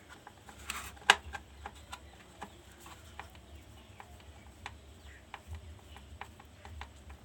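Scattered light clicks and taps of small hard parts being handled, with one sharper click about a second in, over a steady low hum.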